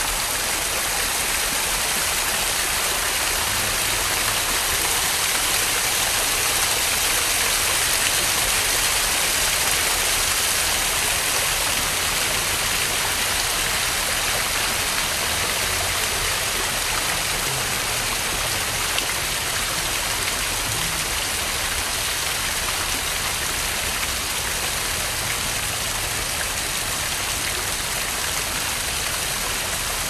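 Small waterfall splashing steadily as thin streams of water spill over mossy rocks into a shallow pool; an even, hissy rush with no change.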